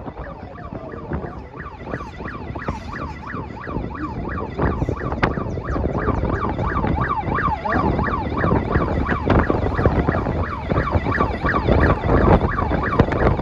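Vehicle siren in a fast yelp, its pitch sweeping up and down about three times a second. It comes in about a second in, over wind and road noise from a moving vehicle.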